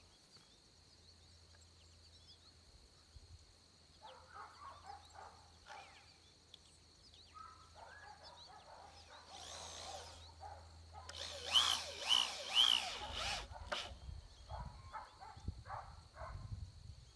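Cordless drill driving screws into birch poles, in short runs whose motor whine rises and falls. It is loudest about two-thirds of the way through, and short knocks from handling the wood come near the end.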